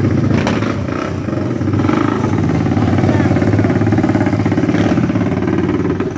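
Small off-road engine running loud and close at a steady speed, its exhaust pulsing evenly, with no big revs.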